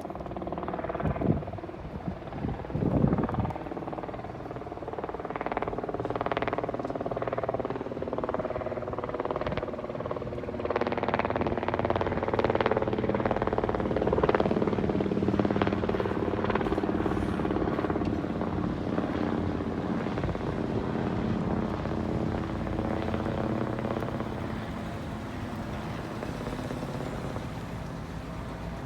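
Helicopter flying past, its engine and rotor blades chopping, growing louder to a peak about halfway through and then fading away. There are a couple of sharp thumps near the start.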